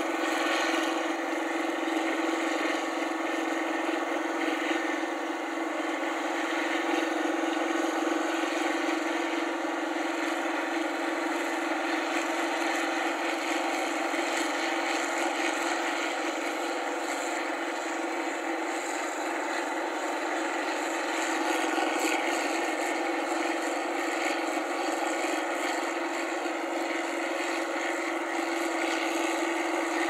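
New Holland 8060 combine harvester running steadily while cutting rice: an even engine and machinery drone with a strong low hum and a hiss over it, unchanging throughout.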